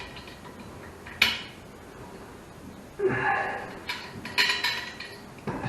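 Sharp clinks and knocks of small hard parts and tools being handled during plumbing work: one clink about a second in, then a cluster of clinks between about three and five seconds in.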